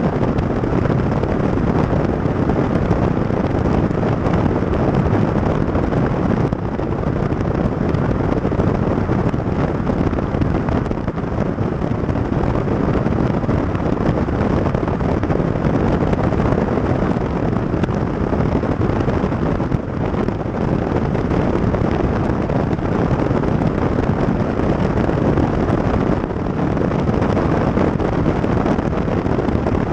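Wind buffeting the microphone of a camera mounted on the outside of a moving car, mixed with road and tyre noise: a loud, steady rush with no breaks.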